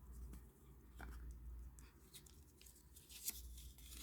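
Faint rustling and small clicks of a lighter's cardboard box and paper insert being handled, with one sharper click about three seconds in, over a steady low hum.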